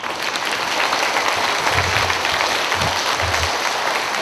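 Audience applauding: dense, steady clapping that breaks out all at once.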